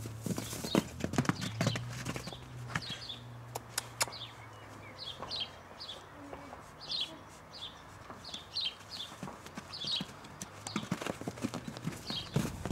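Hooves of a mare and her newborn foal on straw-covered dirt: irregular knocks and thuds of walking and trotting steps, busiest in the first two seconds and again near the end. Between them a high chirp repeats about once a second.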